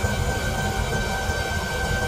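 A machine running steadily, with a low rumble under a constant high whine.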